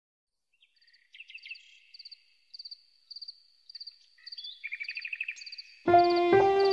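High, faint chirping calls: a short trill repeating about every half second, with a lower, faster chirping call joining twice, most strongly about four and a half seconds in. Near the end, louder background music with violin begins.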